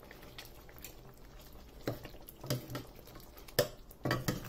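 Thick paneer butter masala gravy simmering in a stainless steel pan, with bubbles bursting in irregular soft plops. A steel ladle stirs through the gravy near the end.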